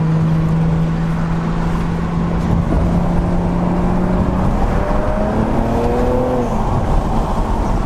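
BMW 335i's twin-turbo N54 straight-six, fitted with dual cone intakes, heard from inside the cabin while driving. A steady engine drone over road noise, then the engine note rises in pitch as the car accelerates from about halfway through, and it stops abruptly shortly before the end.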